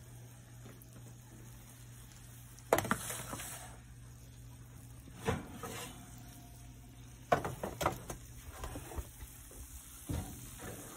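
Metal baking pan, hot from the oven, clunking and scraping as it is handled and set down on the stovetop. There are a few sharp knocks, the loudest about three seconds in, over a steady low hum.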